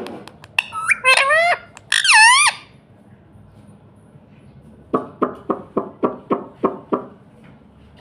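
Rose-ringed parakeet calling: loud squawks that bend up and down in pitch, in two bursts around one and two seconds in, then after a pause a run of about eight short, evenly spaced notes, about four a second.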